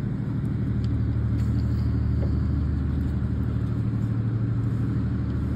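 Boat engine running at a steady speed, a continuous low hum.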